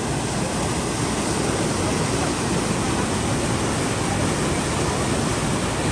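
Fast river water rushing and churning through a weir around a concrete bridge pier, a steady, unbroken rush of white water.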